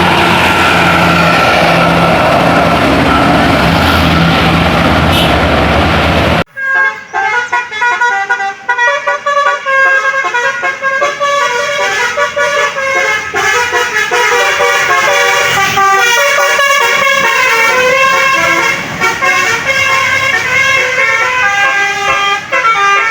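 Bus 'telolet' multi-tone horns. They sound steady notes over engine and road noise, then, after an abrupt cut about six seconds in, play a quick tune of rapidly changing notes.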